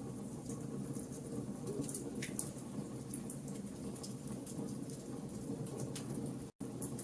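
Wood fire burning in a fireplace: a steady low rush of flames with irregular small sharp crackles, one slightly louder pop about two seconds in. The sound drops out to silence for an instant near the end.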